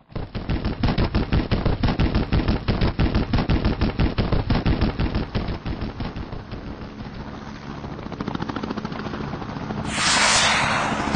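Attack helicopter rotors thumping in a fast, even beat, loud at first and fading back after about six seconds. A louder rushing noise comes in near the end.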